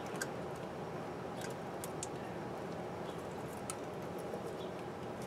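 Faint, scattered small clicks and ticks of hands working thin wires in a cramped space, over a steady background hum.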